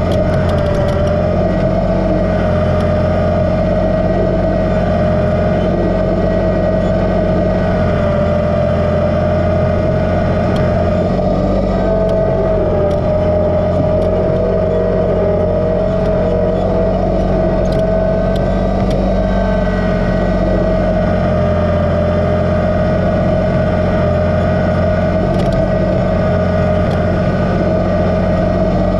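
Kubota BX2380 sub-compact tractor's three-cylinder diesel engine running steadily, with a steady whine over it.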